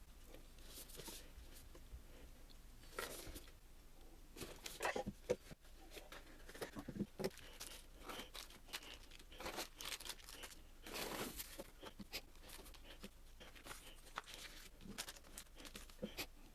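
Faint rustling and crinkling of packaging being handled, with scattered light clicks and taps.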